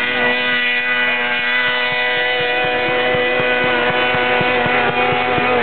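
Snowmobile engine held at high, steady revs under full throttle, climbing a steep snow slope.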